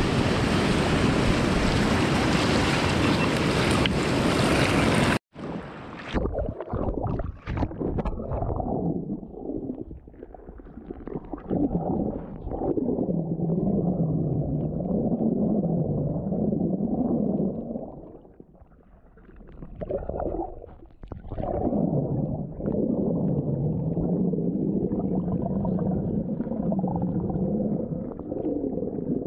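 Wind and surf on an open-air action-camera microphone, then about five seconds in a sudden cut to the muffled sound of the sea heard with the camera held underwater: low sloshing and gurgling with a wavering low hum that rises and falls.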